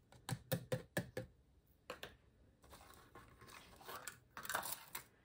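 Small plastic cup tapped quickly about five times against the rim of a plastic blender cup, knocking spice powder into the sauce, then one more tap about two seconds in and softer plastic handling noises.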